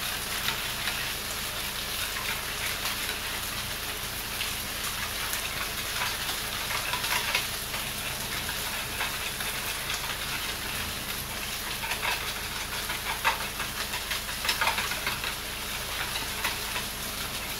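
Lobster pieces sizzling steadily in a frying pan, with scattered light clicks of a whisk stirring coconut milk in a plastic bowl.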